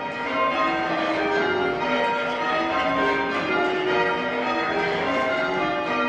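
A light ring of six church bells, tenor 7-3-11 cwt in B flat, being change rung. The bells strike one after another in quick, even succession, each ring overlapping the next.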